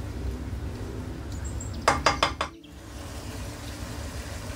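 Wooden spatula stirring beef pieces in a non-stick frying pan, with four quick, sharp knocks of the spatula against the pan about two seconds in.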